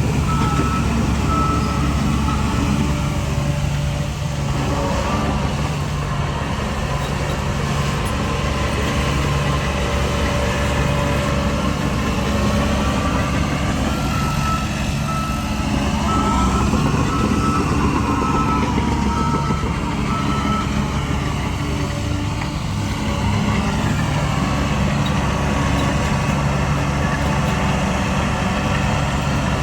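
Heavy diesel earthmoving machinery running steadily, with engine pitch rising and falling around the middle, while a reversing alarm beeps at an even pace, briefly near the start and again for several seconds midway and near the end.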